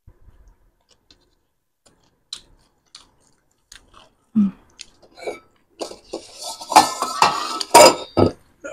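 Close-miked crunching and chewing of crisp street food, with light clinks of a spoon against a dish. The sounds start sparse and grow dense and loud in the second half.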